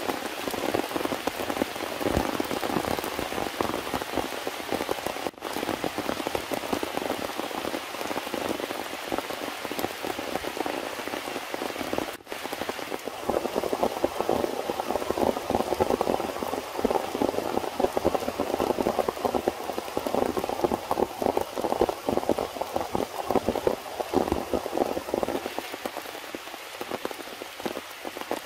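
Steady rain falling in a dense patter, with two brief dropouts about five and twelve seconds in.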